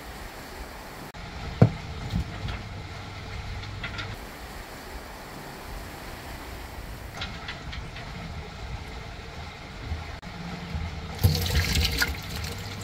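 Steady low rumble and wind noise of a sailboat underway, with one sharp knock about a second and a half in. Near the end, water pours and splashes as rice is rinsed in a plastic colander.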